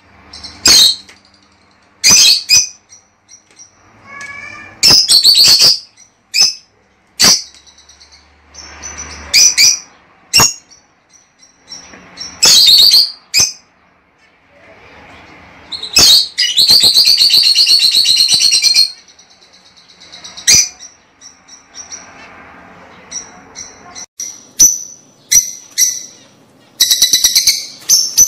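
Lovebirds calling: short, shrill, high-pitched calls come in irregular bursts. About halfway through there is a longer run of rapid chattering calls lasting a few seconds, and a quick burst of calls comes near the end.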